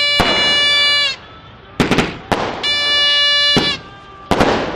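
Firecrackers going off in a repeating cycle: groups of sharp bangs alternate with a loud, steady, shrill tone about a second long that starts and stops abruptly. The cycle comes round twice, about every two seconds.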